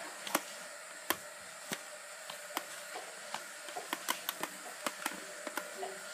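Irregular sharp clicks and light taps from hands handling a doll and its hair close to the microphone, a dozen or more and coming faster in the second half, over a steady hiss.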